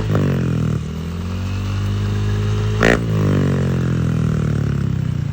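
Yamaha NMAX V2 scooter's single-cylinder engine through an Apido V5 aftermarket exhaust, revved by the throttle: the revs drop at the start, climb to a sharp peak about three seconds in, then fall back to idle.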